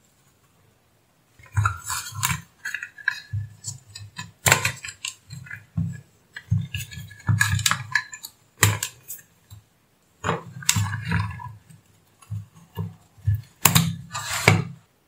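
Amplifier circuit boards, wiring and a metal chassis bracket handled on a workbench: a run of clatter, rattles and knocks that starts after about a second and a half of quiet, with sharper knocks about four and a half, nine and fourteen seconds in.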